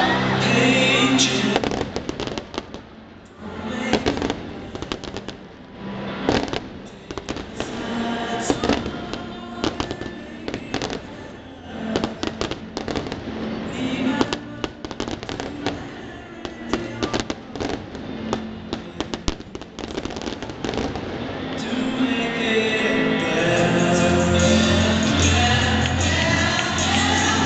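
Aerial fireworks bursting, with many sharp bangs and crackles coming close together for about twenty seconds, over music from the stadium loudspeakers. The bangs thin out near the end and the music carries on alone.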